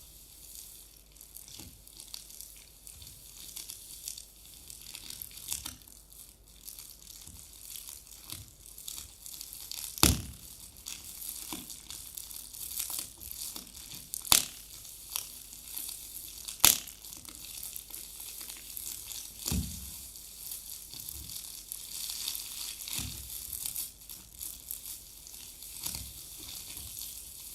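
Foley imitation of a crackling fire, made by handling three objects together: a steady crinkling crackle with scattered pops, and a few loud sharp snaps about ten, fourteen and seventeen seconds in.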